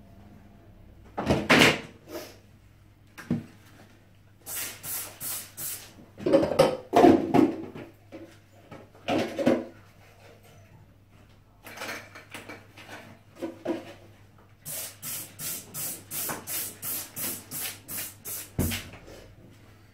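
Trigger spray bottle of cleaner squirted in quick hissing bursts: four in a row early on, a few more later, then a run of about a dozen near the end. Louder knocks and rubbing come from the rubber bath mat being handled in the first half.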